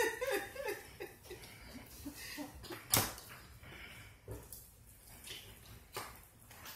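Quiet kitchen handling noise: a few light knocks and clicks spaced a second or more apart, with soft voices in the first second.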